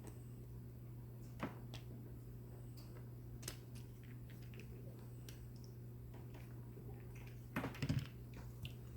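Faint, scattered small clicks and taps of small parts being handled, with a short flurry of clicks near the end, over a steady low hum.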